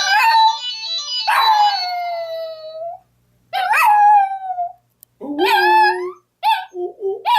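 Dog howling: two long howls that slide down in pitch, then a run of shorter howls that rise and fall, coming more quickly near the end.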